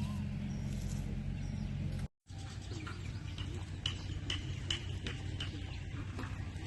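Outdoor ambience with a low steady hum that drops out briefly about two seconds in. From about four seconds in there is a run of short, high bird chirps.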